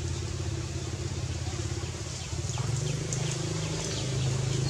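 A steady engine drone, growing louder near the end, with faint short high chirps over it.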